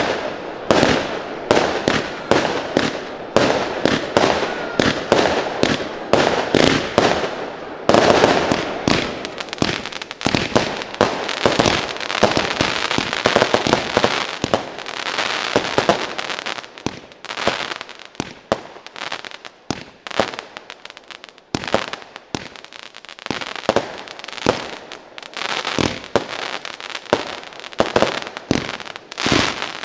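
Consumer firework batteries firing in quick succession: a fast, irregular run of shots and bangs, several a second, at their densest through the middle and thinning out toward the end.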